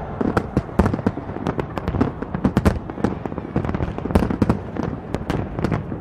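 Fireworks show bursting, a dense, irregular run of sharp bangs and crackles, several a second.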